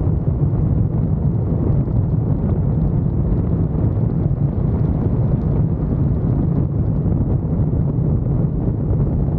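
Steady low rumble of a car on the move: road noise, with wind buffeting the microphone.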